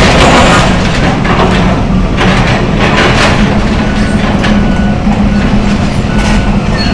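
Excavator's diesel engine running under load with a steady low hum, over irregular crashes and scraping as building debris is pulled down and dropped. The recording is loud and somewhat distorted.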